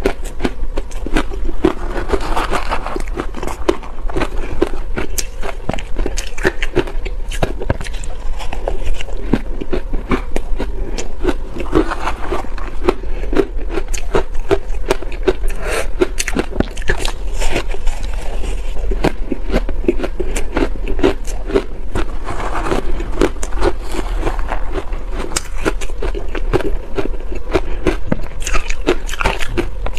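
Close-miked chewing of soft shaved ice coated in matcha powder: a dense, continuous run of small crisp crunches and clicks as the ice is bitten and ground between the teeth.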